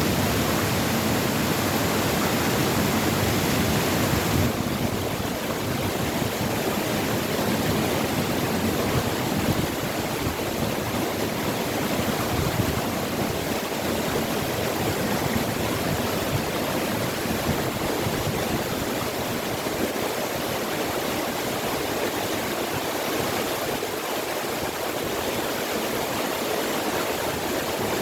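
Waterfall pouring: a steady rush of falling water, its high hiss thinning a little about four and a half seconds in.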